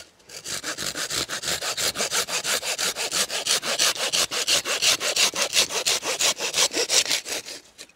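Hand saw cutting through a wooden branch, quick, even back-and-forth strokes about five or six a second, which stop shortly before the end.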